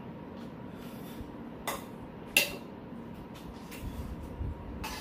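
Metal spoons clinking and scraping against stainless steel bowls and plates while eating, with a few short clinks, the loudest and sharpest about two and a half seconds in.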